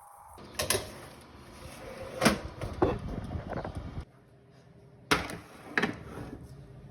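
A handful of sharp knocks and clacks, about six in all, of hard objects being handled or set down, with the background changing suddenly between short edited clips.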